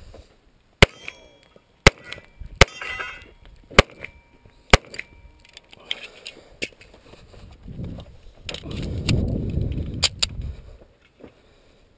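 Five shots from a Rock Island Armory 1911 pistol, fired at uneven intervals about a second apart within the first five seconds, followed by fainter clicks and a low rumbling noise.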